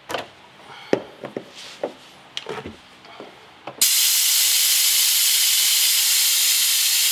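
A few light knocks and clunks as the power steering cooler is handled, then about four seconds in a loud, steady hiss of compressed air from a blow nozzle pushed into the cooler's fitting, blowing the leftover power steering fluid out of the cooler.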